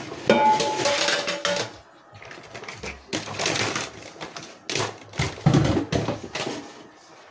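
Dishes and cookware being handled at the kitchen counter: a glass lid and pans knocking together, one ringing briefly in the first second or two, then a run of irregular clatters and knocks.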